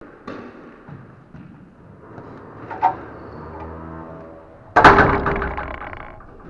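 Glass squash-court door shutting with a loud bang about five seconds in, ringing out for over a second. Earlier there are a few lighter knocks of a squash ball being hit.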